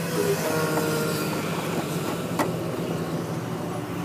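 Truck's diesel engine idling with a steady low hum, with a single sharp click a little over two seconds in.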